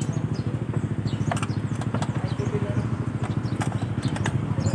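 A small motorcycle engine idling steadily with a fast, even pulse, with a few sharp clicks and taps of parts being handled.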